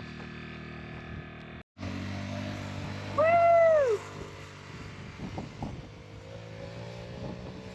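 A single drawn-out animal call, meow-like, that rises and then falls in pitch about three seconds in. It sounds over a steady low engine-like hum.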